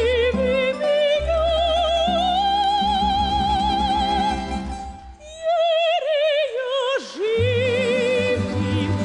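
Operatic soprano singing with wide vibrato over a tamburica band, with tremolo-strummed tamburicas and a double bass. The voice climbs to a long held high note, the music breaks off briefly about five seconds in, then the voice and the band come back in.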